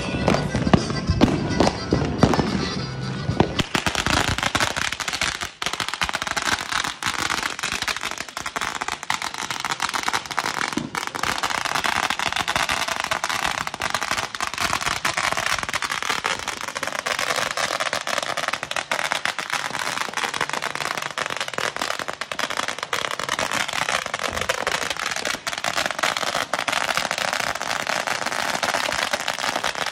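Music plays for the first few seconds, then a long firecracker string goes off on the pavement: a dense, unbroken rapid crackle of bangs that keeps going to the end.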